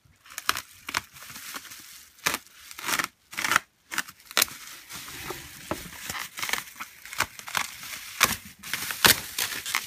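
Bubble wrap around a package crinkling and crackling as it is handled and cut open, with many sharp crackles and snips over a steady rustle.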